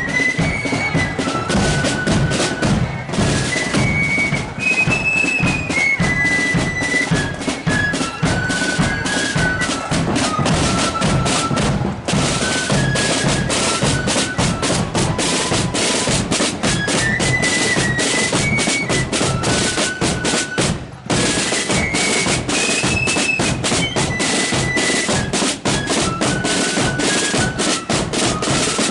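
Marching flute band playing: massed flutes carry a high stepping tune over rapid snare-drum rolls and bass drum beats, with brief breaks between phrases.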